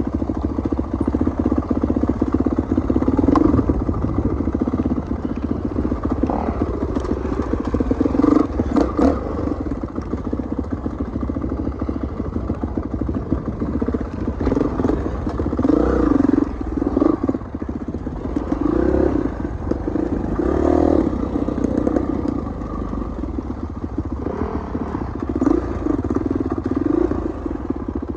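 Kawasaki dirt bike engine running on a trail ride, its note swelling and easing as the throttle opens and closes, with a few sharp knocks from the bike over rough ground.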